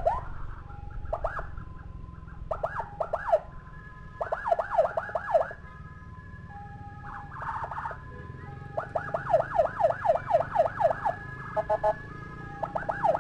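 Electronic emergency sirens of an ambulance escort convoy, several at once. Bursts of fast rising-and-falling yelps come about six times, with held steady tones between them. Underneath runs the low rumble of the motorcycle riding along.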